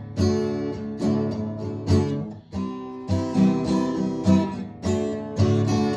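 Acoustic guitar being strummed, chords struck in an uneven rhythm about once or twice a second.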